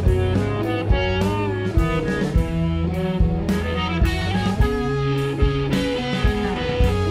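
Psychedelic rock band playing: electric guitar notes, some bent in pitch, over bass and a drum kit keeping a steady beat.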